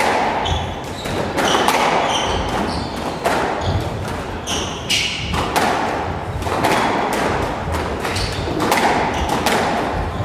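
Squash rally: the ball being struck by rackets and smacking off the walls, a sharp hit about every second, with short squeaks of court shoes on the hardwood floor.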